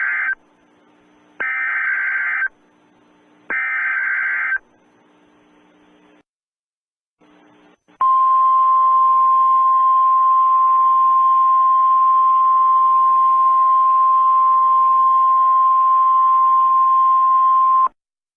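Emergency Alert System header: the tail of one burst of data tones, then two more bursts about a second long each, then a few seconds of faint hiss. About eight seconds in, a single steady attention tone starts; it holds for about ten seconds and cuts off suddenly.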